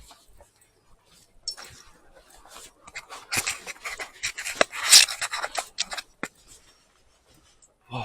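Rubbing and scratching handling noise on the microphone: a dense run of rough scrapes and clicks starting about a second and a half in, loudest about five seconds in, stopping a little after six seconds.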